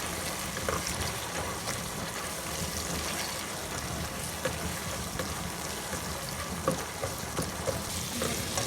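Onions, ginger-garlic paste and whole spices sizzling steadily in hot oil in a cooking pot, with a few light clicks. This is the masala being fried down (bhuna) for the pulao.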